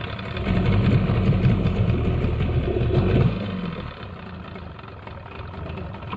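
Small boat outboard motor running while it warms up. About half a second in it revs up unevenly and louder, then after about three seconds it falls back to a quieter, steady idle.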